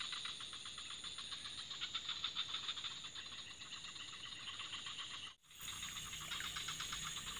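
Chorus of calling insects and frogs: a fast, even pulsing of about ten beats a second with a steady high whine above it, cut off briefly about five seconds in.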